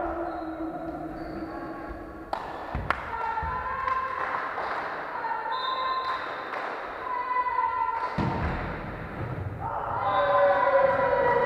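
A volleyball struck twice in quick succession about two and a half seconds in, sharp thumps echoing in a sports hall, with more ball and floor thumps later. Long, slowly wavering tones run underneath.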